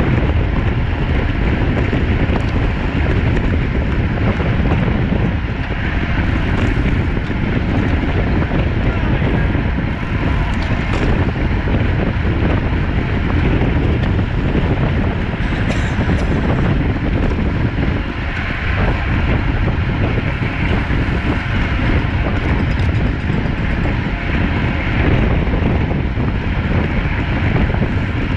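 Steady wind rushing over the microphone of a camera carried on a road bike at racing speed, a loud low rumble that never lets up.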